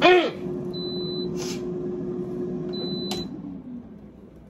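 Air fryer's fan running with a steady hum. About three seconds in there is a click, and the hum winds down and fades as the fan stops. Right at the start there is a brief loud sound that falls in pitch.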